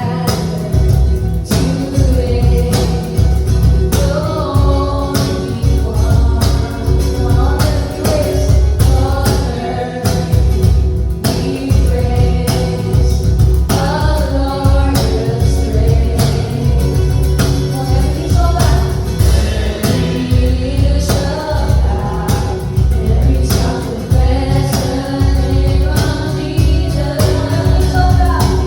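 Contemporary worship song: a full band with a steady drum beat and heavy bass under sung lead and backing vocals.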